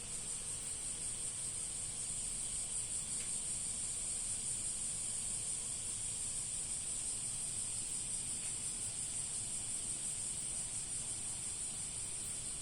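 A steady high-pitched hiss with no change or breaks.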